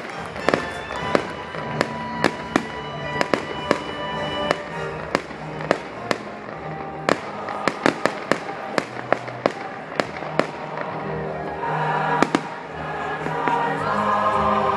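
Fireworks display: aerial shells going off in a rapid string of sharp bangs and crackles, several a second, over music. Near the end the bangs thin out and the music grows louder.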